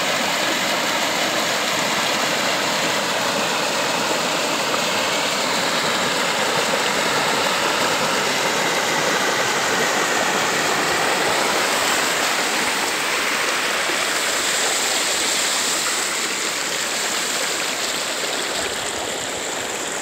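Muddy creek water running high, rushing and splashing over rocks at a small waterfall: a steady, loud rush that eases a little in the last few seconds.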